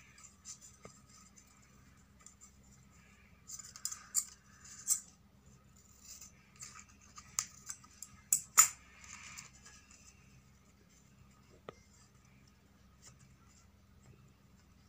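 Scissors snipping through thin craft paper while cutting a spiral strip. There are two clusters of sharp snips with paper rustling, one about four to five seconds in and one around eight to nine seconds in, the last snip the loudest. Only faint paper handling follows.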